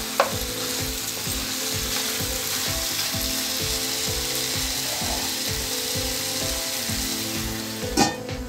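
Pieces of country chicken frying in just oil in a nonstick pan: a steady sizzle, with a spatula stirring and scraping the pan in regular strokes about three times a second. About eight seconds in, a glass lid clanks as it is set on the pan.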